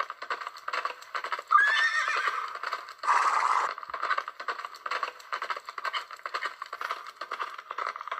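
Horses' hooves clip-clopping on the street in a dense, uneven patter, with a horse whinnying loudly about a second and a half in, then a short rushing breath-like noise about three seconds in.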